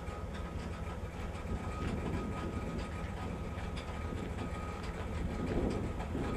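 Steady low mechanical rumble of a running engine or machine, with a faint thin whine and scattered clicks.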